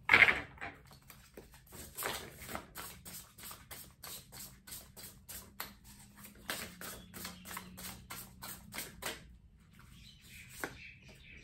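A tarot deck being shuffled by hand: a quick, uneven run of soft card flicks and slaps that stops about two seconds before the end.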